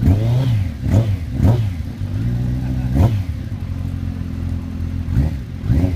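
Kawasaki race motorcycle's engine idling, with short sharp throttle blips that rise and fall in pitch: a few in the first second and a half, one about three seconds in, and a quick run of three near the end.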